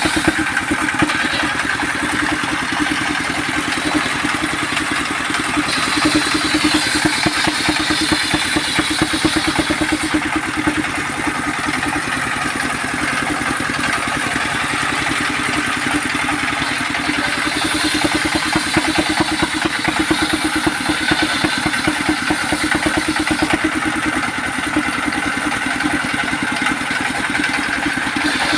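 Sawmill machinery running steadily with an engine-like drone and a fast, even pulse, and some higher-pitched stretches that come and go.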